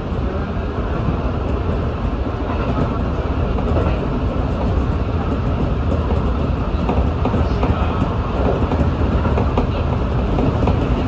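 Electric commuter train running along the track, heard from inside the front cab: a steady rumble of wheels on rail with a few light clicks.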